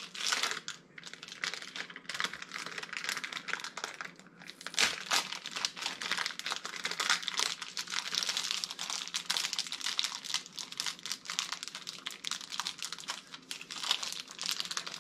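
Block of cheese being grated by hand, with its plastic wrapper crinkling in the hand: a dense, irregular run of quick, scratchy strokes.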